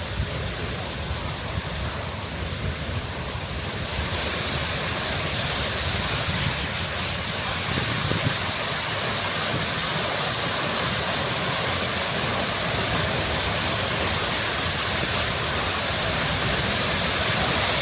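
Steady rushing roar of Seljalandsfoss, a 60 m waterfall plunging onto rock, growing a little louder and brighter about four seconds in.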